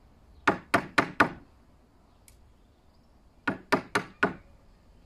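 Wooden mallet striking a chisel handle, driving the chisel into a wooden block: two quick runs of four sharp knocks, about four a second, the second run about three seconds after the first.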